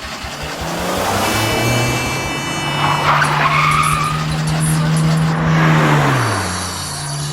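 Car sound effect: an engine revving up and holding steady, with a tyre squeal about three seconds in, then the engine pitch dropping near the end.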